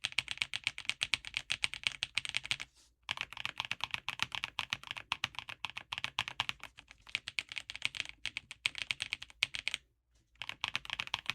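Fast typing on a Redragon K745 Pro mechanical keyboard in its stock, unmodded case: a quick run of key clicks in several stretches, with brief pauses about three seconds in and again near the end.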